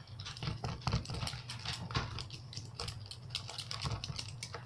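Close-up eating noises: a quick, irregular run of small wet clicks and smacks from chewing and handling shrimp and rice in a paper bowl, over a steady low hum.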